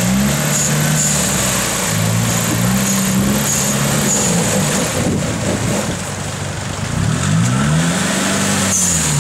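Toyota Hilux pickup's engine revving up and down under load as its front tyre spins in the river, churning and splashing water while the truck is winched up the bank.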